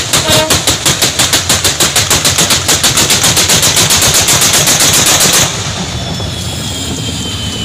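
A rapid string of sharp firecracker bangs going off on the rails under the front wheels of a diesel locomotive, quickening to about ten a second and stopping abruptly after about five seconds. Then the locomotive's steady running noise, with a faint falling whine.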